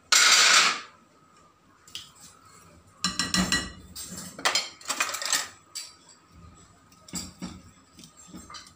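Spoon knocking and clinking against a ceramic bowl while a wet egg and vegetable mixture is worked, in irregular clusters, with a loud rustling clatter at the very start.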